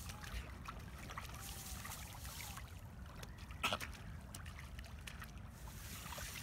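Shallow water lapping and trickling at the shore's edge, with small clicks and a low rumble, and one short sharp sound about three and a half seconds in.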